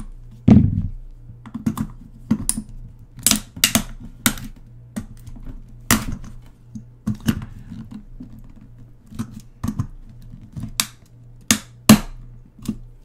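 Flathead screwdrivers prying at a plastic compact cassette shell that is welded shut with no screws, with irregular sharp clicks, taps and snaps of metal on hard plastic. A heavier thump about half a second in.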